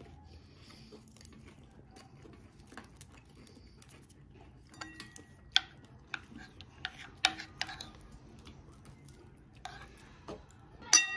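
Scattered light clinks and taps of metal utensils against dishes, a few of them ringing briefly. Quiet at first, they come more often from about halfway through, with the sharpest clink near the end.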